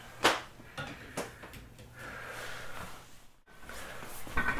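A person breathing heavily through an N95 mask. A sharp short burst comes about a third of a second in and a few faint clicks follow. A longer breath about two seconds in cuts off abruptly, and another breath comes near the end.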